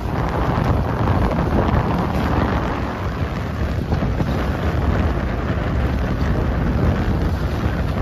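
Strong wind buffeting the microphone in a steady, loud low rumble, over wind-driven waves chopping on the lake.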